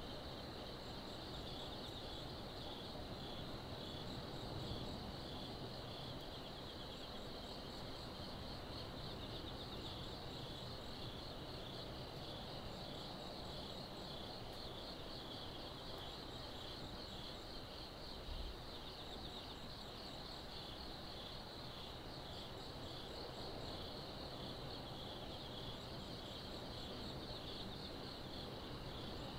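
A steady chorus of night insects trilling in a fast, even pulse. A fainter, higher chirp comes in short repeated groups, over a low steady background rumble, with one soft low thump a little past the middle.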